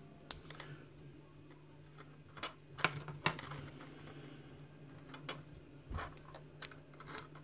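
Scattered small metallic clicks and taps as a shim is worked in a pinned lock cylinder, trying to draw it back out where it sits tight, over a faint steady low hum.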